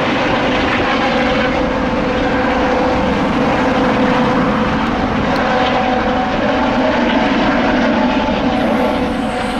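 Air ambulance helicopter flying low overhead, its engines giving a steady whine over the broad noise of the rotors.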